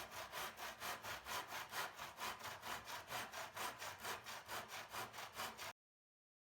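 Hand saw cutting a miter in a thin walnut trim strip: quick, even back-and-forth strokes, about four or five a second. The sound cuts off suddenly near the end.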